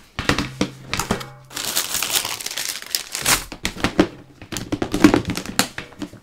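Handling noise as a bundle of wooden bamboo skewers is fetched and laid on the cutting mat. A run of small clicks and knocks, with a denser stretch of crinkling about two seconds in and a sharp knock near the end.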